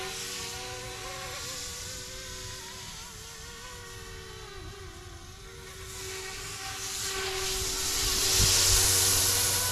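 YU XIANG F06 EC135 RC helicopter flying, its motor and rotors giving a steady whine with a wavering pitch and a hiss. The sound fades in the middle as it moves off, then grows louder near the end as it comes closer.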